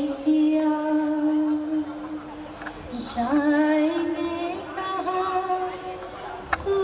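A woman singing solo into a hand-held microphone, holding long notes. She breaks off briefly about three seconds in and starts a new phrase that steps upward. A sharp click comes near the end.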